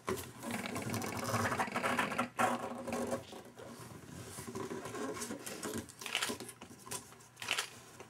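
Small hands rapidly scratching and patting the top of a cardboard box, busiest in the first few seconds and then coming in scattered strokes.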